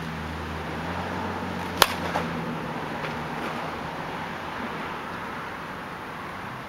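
A 27.5 oz USSSA slowpitch softball bat hitting a pitched softball: one sharp, loud crack about two seconds in, followed a moment later by a fainter knock.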